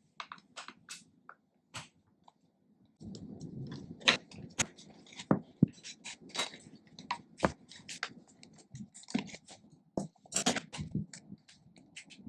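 Clicks and knocks of a tool and skate parts as the axle bolts are undone and the original wheels are taken off an inline skate frame, with handling noise behind from about three seconds in.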